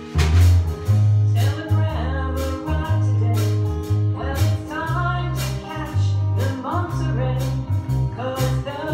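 A small live band playing a song in a room: drum kit, electric and acoustic guitars and a strong low bass line, with voices singing the melody.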